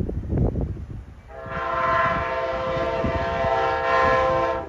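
Amtrak Silver Meteor locomotive horn sounding one steady chord for about three seconds, starting about a second and a half in and cutting off just before the end. Gusts of wind on the microphone come before it.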